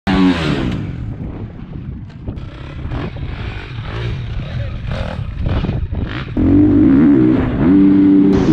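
Husqvarna FC450 four-stroke single-cylinder motocross bike riding a dirt track, with wind buffeting the helmet or bike camera. The engine note drops off at the start, and about six seconds in the throttle opens and the engine pulls loudly at high revs, dipping briefly and picking up again.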